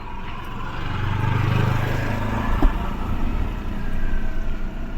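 2020 Maruti Suzuki Wagon R's three-cylinder petrol/CNG engine idling steadily just after starting, with a freshly replaced CNG injector fitted. A single sharp click sounds about two and a half seconds in.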